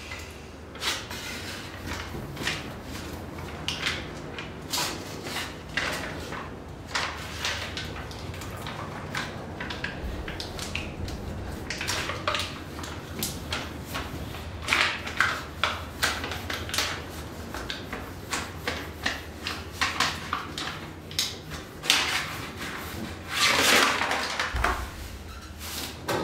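Paper release backing being peeled off a self-adhesive, foil-faced sound-deadening mat, with the mat pressed and rubbed down by hand onto a metal wall panel. Irregular crinkles, rustles and scrapes, busier in the second half, with a longer rustle near the end.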